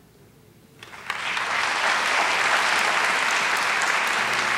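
Audience applauding: a brief quiet, then clapping starts about a second in, builds quickly and continues steadily.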